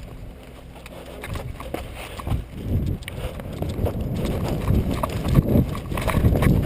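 A person's running footsteps, quiet at first and then a quick run of thudding steps from about two seconds in.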